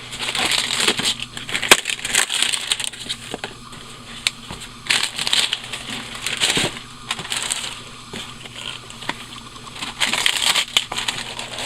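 Packaging rustling and crinkling as it is handled and pulled out of a cardboard box, with irregular clicks and knocks; busiest near the start, around the middle and near the end.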